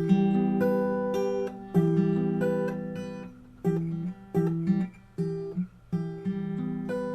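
Acoustic guitar fingerpicked: a bass note and a treble string plucked together, then single strings in turn, each note left to ring into the next.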